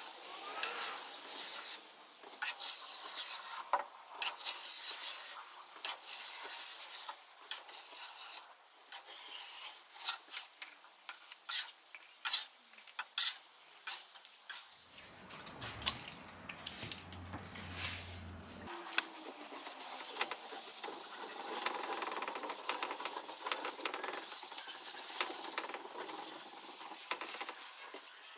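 Metal scraper blade dragged across a mahogany top, scraping off filler paste in repeated uneven strokes with sharp clicks. This gives way to a steadier rubbing hiss over the last several seconds.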